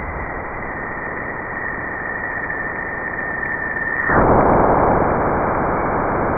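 Radio-like static hiss with a thin, steady high whistle over it. The whistle stops about four seconds in and the hiss grows louder.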